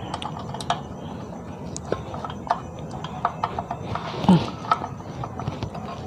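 Scattered light clicks and taps of sheet-metal and plastic connector parts being handled as cables are routed and fitted on a Canon iR6000 copier's automatic document feeder (ADF) frame.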